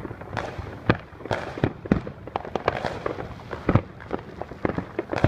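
Fireworks going off in a rapid, irregular string of bangs and crackles, the loudest bang about three and a half seconds in.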